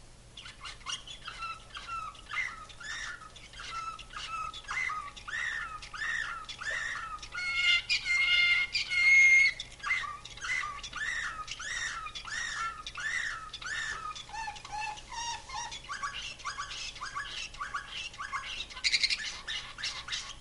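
Slavujar canary (a canary bred and trained for nightingale-like song) singing a long, unbroken song of repeated rolling notes in runs. About 8 seconds in it switches to a louder, higher trill, and near the end it gives a fast, buzzy trill.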